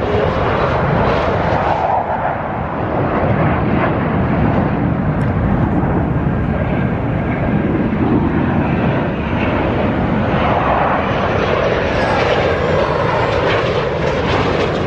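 Military jet aircraft flying past in formation: a loud, continuous jet roar whose tone slowly shifts as they pass.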